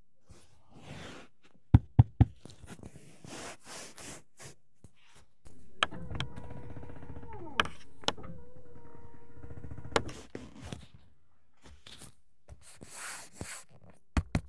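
Knocks and clicks from the car's rear-cabin fittings being handled, with three sharp knocks about two seconds in. In the middle comes a steady hum lasting about four seconds, which dips in pitch once, then a few more clicks and knocks near the end.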